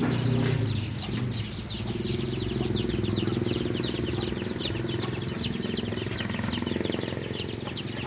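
A flock of swiftlets twittering as they circle in the air, a dense stream of quick, high, falling chirps. A low engine hum runs underneath from about two seconds in.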